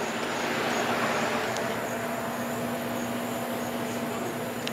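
Car moving slowly: steady engine and tyre noise with a constant low hum.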